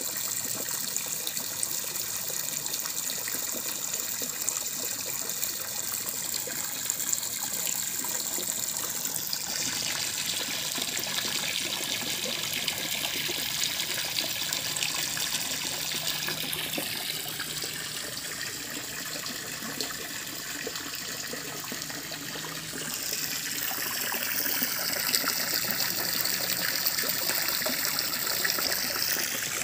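Steady rush of running water, its tone shifting a few times.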